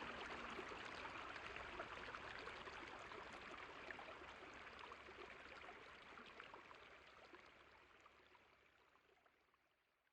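Water running in a stream, a steady trickling rush that fades out gradually to silence.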